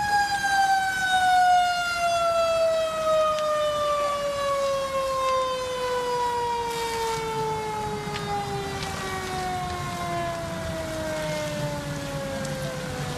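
Fire engine siren winding down: one long tone that falls slowly and steadily in pitch and fades gradually. A low rumble comes in underneath during the second half.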